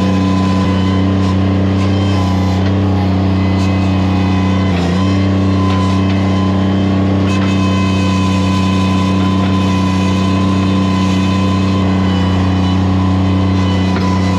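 Mini skid steer engine running steadily at high throttle, its pitch dipping briefly about five seconds in.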